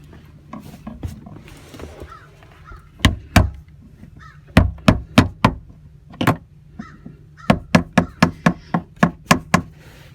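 Hammer tapping on a flathead screwdriver in sharp metallic strikes: a pair about three seconds in, a few scattered blows, then a quicker run of about three to four taps a second in the last few seconds. Crows caw faintly in the background.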